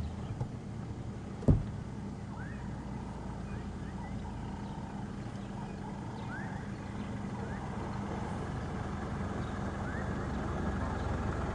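Safari game-drive vehicle's engine running with a low steady hum, with a single knock about a second and a half in. Short rising bird chirps sound over it.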